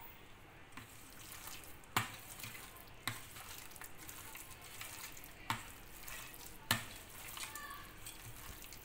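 Hand squishing and kneading chicken pieces in a thick, wet yogurt-and-spice marinade in a steel bowl. Four sharp knocks against the bowl come through it.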